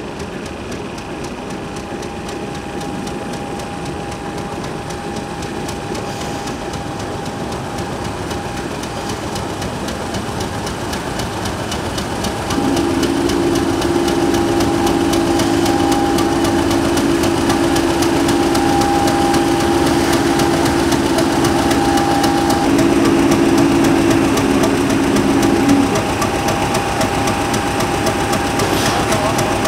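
Heritage diesel locomotive engine running. About twelve seconds in, a loud, steady low two-note tone comes in, holds for about thirteen seconds, then drops away.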